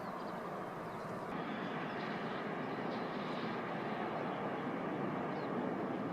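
Steady, even noise of an airplane's engines, with no distinct events and a few faint high chirps over it.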